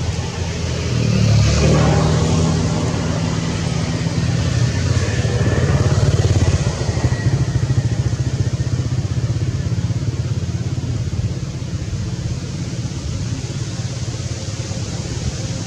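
A motor vehicle engine running, a steady low hum that swells about a second in and again around six seconds in before easing off.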